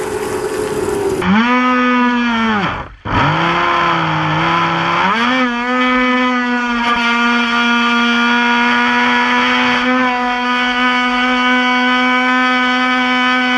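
Radio-controlled boat's motor running with a high, steady drone. Its pitch falls about two seconds in, cuts out briefly, stays low, then climbs again about five seconds in and holds steady at high revs. Under the first second, the tail of a full-size speedboat's engine.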